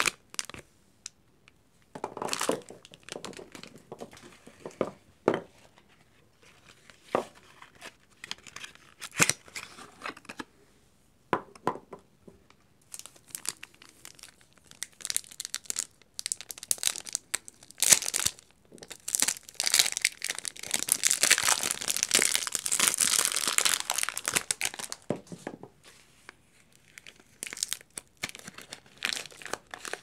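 Soap-bar wrappers of plastic film and paper being torn open and crinkled by hand, in separate bursts with short quiet gaps, and a longer stretch of crinkling about two-thirds of the way through.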